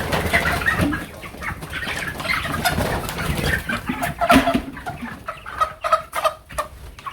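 A flock of broiler chickens clucking and chirping together, with a few brief sharp scuffles among the calls.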